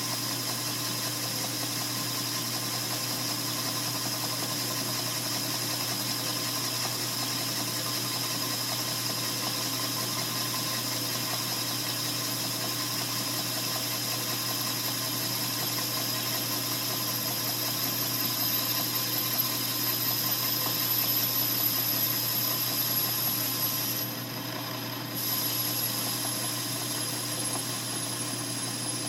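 Metal lathe running steadily while parting off a copper-alloy exhaust valve seat from bar stock: a constant motor and spindle hum with a high hiss of the cut, briefly quieter near the end.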